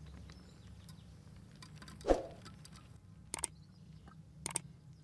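Chilli oil being poured from a plastic bag through a small tea sieve and plastic funnel into a glass bottle: faint pouring and handling, with one low thump about two seconds in and a few light clicks later on.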